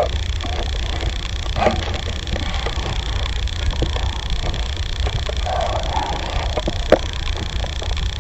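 A wild canine caught in a steel leg-hold trap snarls and growls in short bursts, the longest a little past the middle, over a steady rumble of wind on the microphone; a sharp metallic click comes near the end.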